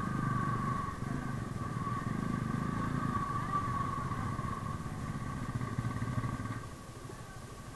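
The single-cylinder engine of a Yamaha R15 V3 motorcycle is running at low speed in slow traffic, with a steady whine over it. The engine sound drops off about six and a half seconds in as the bike comes to a stop.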